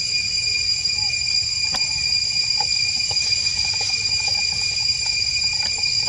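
Steady high-pitched insect drone, with faint short chirps and squeaks over it.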